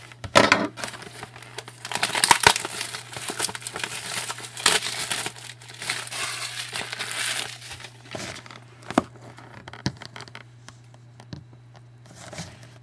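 Plastic wrapping crinkling and tearing as a sealed trading card box is unwrapped and opened, dense for most of the time and thinning to scattered clicks and taps over the last few seconds.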